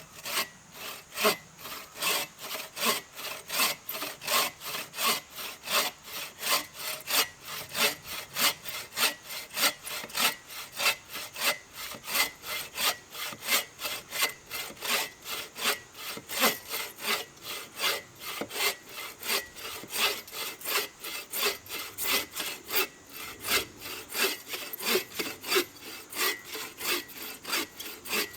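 Hand saw cutting through wood in steady back-and-forth strokes, about two to three a second.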